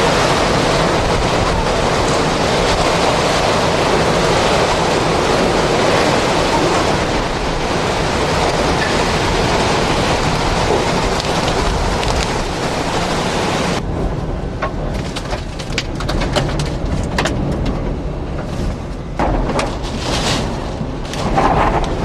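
Hurricane Wilma's wind and driving rain battering the microphone, a loud steady rush of noise. About fourteen seconds in, the hiss drops away suddenly, leaving a low wind rumble with scattered sharp taps.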